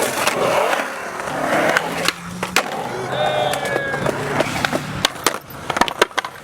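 Skateboard wheels rolling on skatepark concrete, followed from about five seconds in by a quick run of sharp board clacks and knocks.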